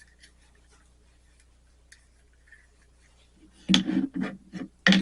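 Supplies being handled on a work table: quiet at first, then a burst of sharp clatters and knocks about three and a half seconds in and one more just before the end, as things are picked up and set down.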